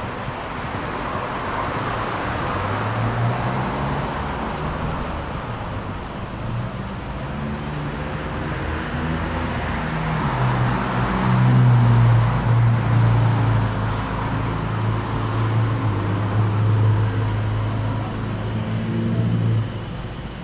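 Street traffic: cars passing on the road, with a vehicle's low engine hum joining about halfway through and cutting off sharply near the end.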